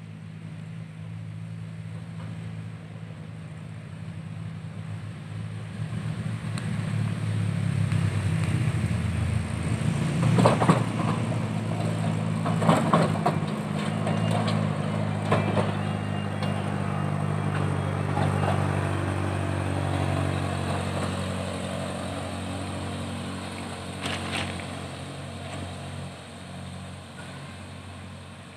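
Road-rail crane truck's engine running as it drives along the railway track, growing louder as it comes near and passes, then easing off. A few sharp clanks ring out as it passes.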